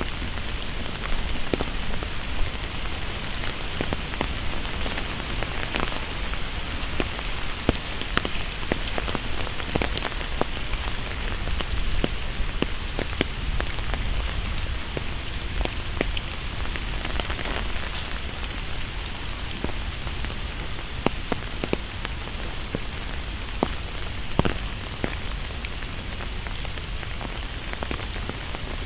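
Steady rain falling, with many sharp single drop hits landing close by at irregular intervals.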